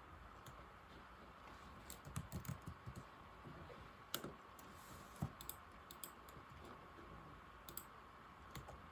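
Keys of an old laptop keyboard being typed, faint clicks in uneven bursts: a quick run about two seconds in, then scattered single keystrokes.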